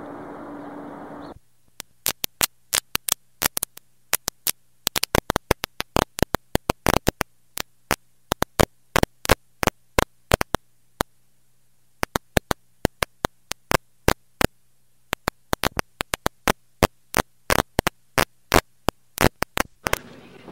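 Street background noise cuts off suddenly about a second in, giving way to the playback noise of blank videotape: a faint low hum broken by irregular sharp clicks and pops, several a second. Hiss returns just before the end.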